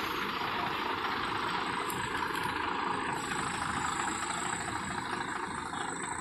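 Heavy truck engine idling steadily.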